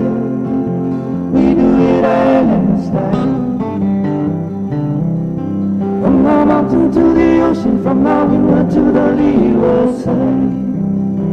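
Music: a song with singing over guitar.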